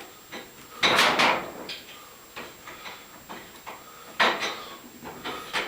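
Irregular knocks, clicks and scrapes of hard parts being handled, with a louder scrape about a second in and a sharp knock a little past four seconds.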